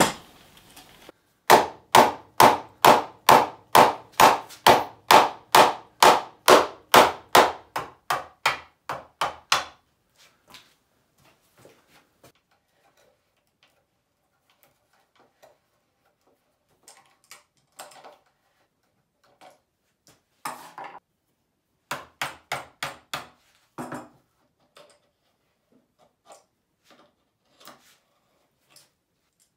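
Hammer blows on wood during assembly of a hand-powered band saw: a steady run of about twenty loud strikes at roughly two and a half a second, stopping about ten seconds in. Scattered light taps and clicks of tools follow.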